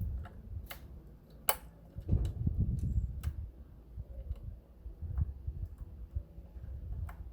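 Scattered sharp clicks and low knocks of hand tools and parts being handled on an engine during reassembly, with the loudest click about a second and a half in.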